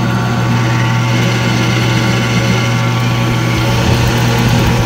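WEN variable-speed benchtop drill press running with its cover off: the motor and the drive belt turning over the split variable-pitch pulleys, with a strong steady low hum.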